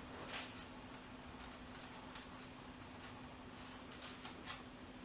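A few faint clicks and light taps of small metal parts handled by gloved hands on an engine, two of them close together near the end, over a steady low hum.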